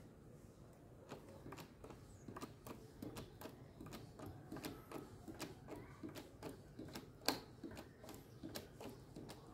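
Homemade PVC hydraulic bottle jack being pumped by its handle under a load of bricks: a faint, irregular run of clicks and ticks from the pump stroke, with one sharper click about seven seconds in.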